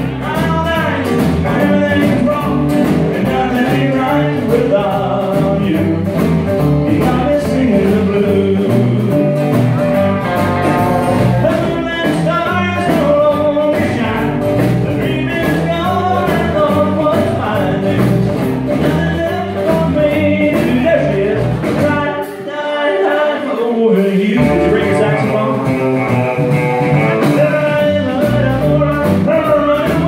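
Live band playing a song: a lead singer over acoustic guitar, electric guitar, bass guitar and drums with a steady beat. About twenty-two seconds in, the bass and drums drop out for a moment before the full band comes back in.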